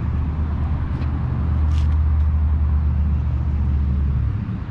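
Low, steady rumble of a vehicle engine running nearby, dropping off about four seconds in.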